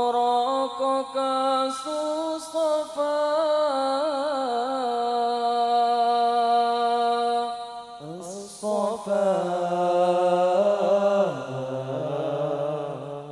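Solo male voice singing a slow, melismatic sholawat line through a microphone, with no drums. Two long ornamented phrases are broken by a brief breath about eight seconds in, and the second phrase falls to a lower pitch near the end.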